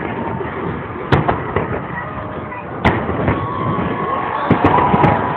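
Fireworks salute shells bursting: two loud bangs about two seconds apart, then a quick run of lighter pops near the end.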